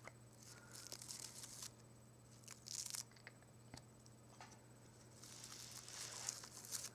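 Fingertips brushing and handling a bouquet of carnations and statice, a faint crinkly rustling of petals in three short stretches, with a small click about halfway through.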